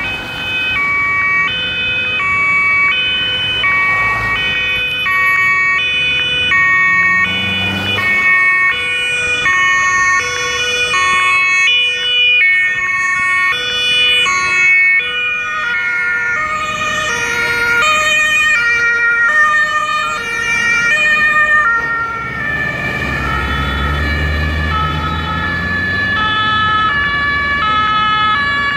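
Two-tone sirens of several German police vehicles in a convoy sound together, each alternating between a high and a low note, out of step with one another. A vehicle engine's low rumble swells and rises about three quarters of the way through.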